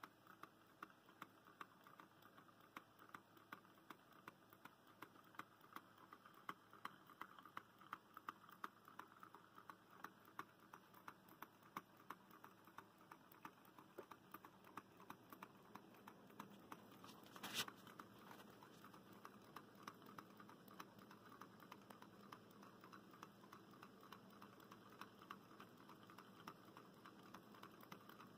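Faint, light ticking from two low-temperature-differential Stirling engines running side by side, several small clicks a second from their moving parts. One sharper click comes about two-thirds of the way through.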